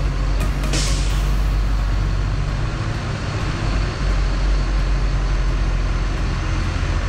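A motor vehicle's engine running steadily close by, a deep low rumble, with a short hiss about a second in.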